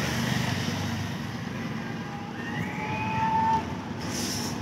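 Street and traffic noise with a steady low rumble, a short rising tone about three seconds in, and a brief hiss near the end.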